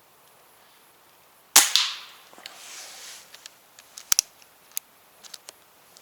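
A PCP air rifle fired through a real firearm silencer: one sharp shot about a second and a half in, followed by a fading hiss. Then come scattered sharp clicks, two loud ones close together about four seconds in.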